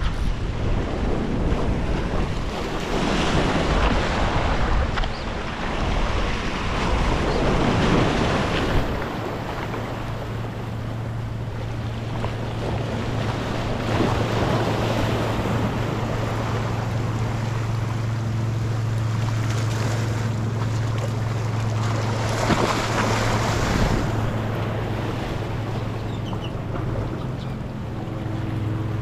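Small waves washing and splashing against jetty rocks, with wind buffeting the microphone. About nine seconds in a steady low hum starts and holds.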